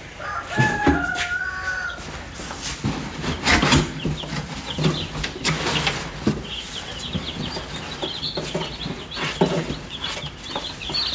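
A boxful of Cornish cross chicks a few days old peeping: many short, high chirps that crowd in from about six seconds on, mixed with knocks and rustling as they are handled. A brief squeak about a second in.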